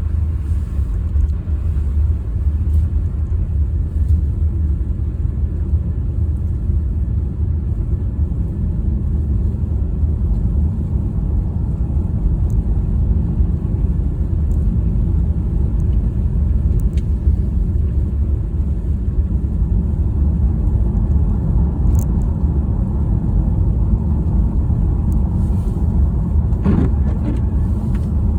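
Steady low rumble of a car driving, heard from inside the cabin. A short squeak comes near the end.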